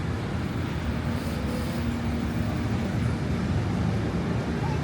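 Steady low rumble of indoor shopping-mall ambience, with ventilation hum and background noise and no distinct events.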